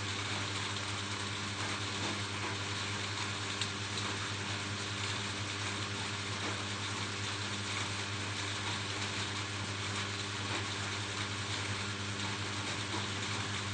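Steady rain falling on a roof, an even dense patter, with a steady low hum underneath.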